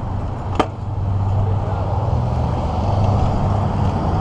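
Steady low vehicle rumble, with one sharp click about half a second in.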